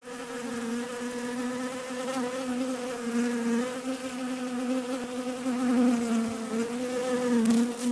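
Honeybees buzzing: a steady hum whose pitch wavers slightly.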